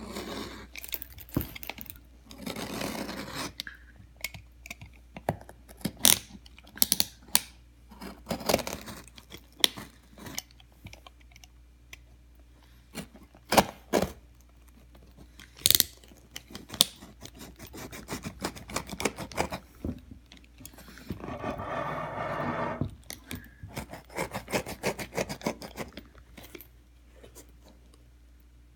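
Utility knife blade scraping and cutting through a leather boot upper: irregular sharp clicks and scratches, with two longer stretches of sawing, one near the start and one about three quarters through. The blade is one the user says needs replacing.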